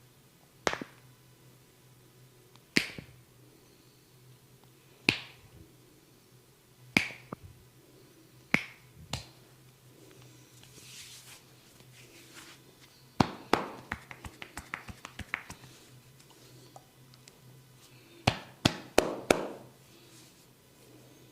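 Finger snaps during a head massage: sharp single snaps about every two seconds, then a quick run of lighter clicks, and a tight cluster of snaps near the end.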